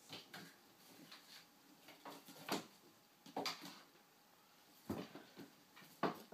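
Soft thumps and taps from a kitten jumping and batting at a hanging tinsel decoration, scattered irregularly, with the loudest about two and a half seconds in and near the end.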